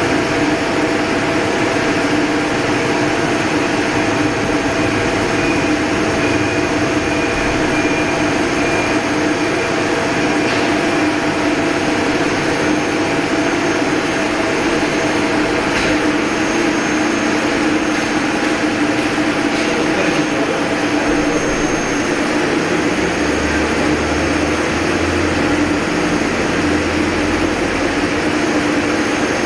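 CNC lathe running: a loud, steady machine whir with a constant hum and a thin high whine, unchanging throughout.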